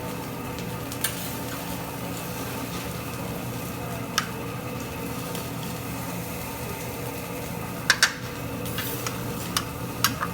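Steady sizzling from a hibachi griddle over a low hum, with a few sharp metal clinks, two close together about eight seconds in.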